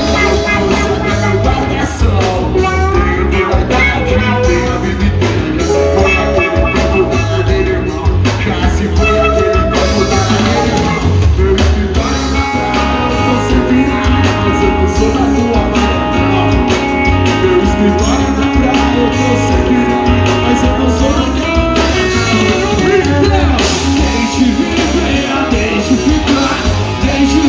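Live rock band playing loud through a PA system, with a steady drum beat and a singer's voice.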